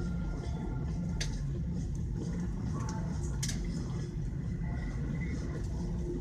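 Airliner cabin noise while taxiing: the engines at idle make a steady low rumble inside the cabin. Two short sharp clicks come about a second in and about three and a half seconds in.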